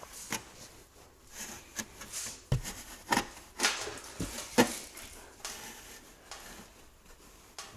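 Irregular light knocks, taps and scrapes of hand work on sheet panels, with no power tool running.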